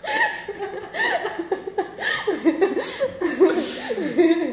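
A woman laughing heartily in repeated bursts, with a man laughing along by the end.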